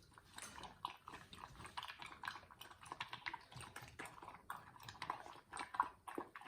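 Rhodesian Ridgeback puppy eating greedily close to the microphone: rapid, irregular crunching and clicking of chewing and biting.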